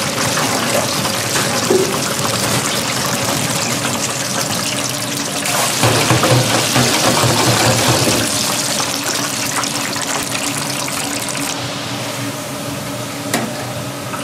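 Running water, a steady rush that grows louder in the middle and then eases off.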